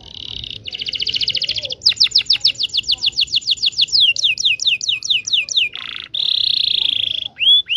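Domestic canary singing long rolling trills. It opens with a buzzy trill, then a run of quick falling notes, about ten a second, that slows to about half that speed. A held note follows, and a few upswept notes come near the end.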